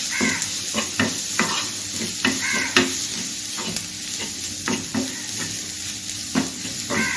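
A metal spoon stirring and scraping sautéing onions, tomato and spice powders around a kadai, clicking against the pan again and again, over a steady sizzle of frying oil. The masala is being cooked until the raw smell of the spices goes.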